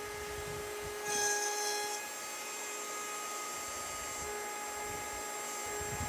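Router on a router table running at a steady high-pitched whine while the bit cuts around a wooden circle on a pivot jig, with a louder, hissier cut lasting about a second near the start.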